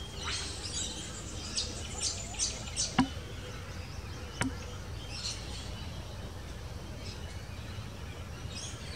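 Small birds chirping in short, high notes over a steady low background hum, with a cluster of chirps in the first three seconds, more about five seconds in and again at the end. Two sharp clicks come about three and four and a half seconds in.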